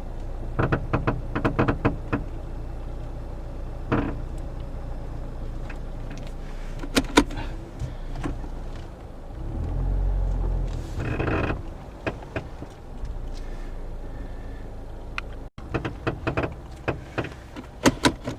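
A 2009 Toyota Corolla with its engine running and a steady low hum. Over it come repeated sharp clicks and knocks, with a louder low swell about halfway through. This is the clunking the owner believes comes from a worn outer tie rod or ball joint, heard when stopping, starting and turning.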